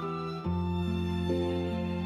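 Soft, slow background music of sustained notes, moving to a new chord about half a second in.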